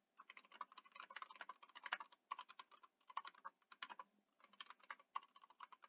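Faint typing on a computer keyboard: quick, irregular keystrokes in short runs separated by brief pauses.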